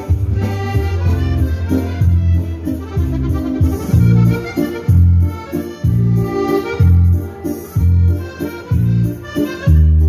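Piano accordion playing a lively dance tune live, over a steady beat with a strong bass note about once a second.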